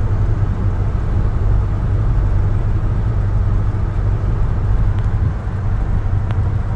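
1966 Ford F100 pickup with a 302 (5.0-liter) V8 cruising at steady speed, heard from inside the cab as a constant low engine drone with road noise over it.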